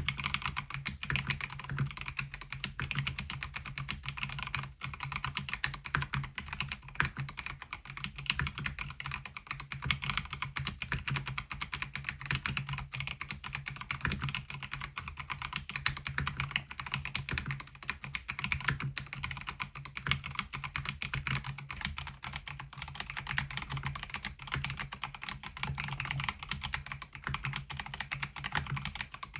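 Continuous, fast typing on a MelGeek Mojo68 mechanical keyboard fitted with MOA-profile keycaps: a steady stream of key clicks and clacks with no pauses.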